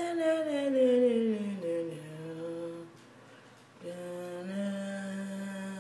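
A person's voice singing wordlessly: a long note sliding downward for about three seconds, then, after a short pause, a steady lower note held.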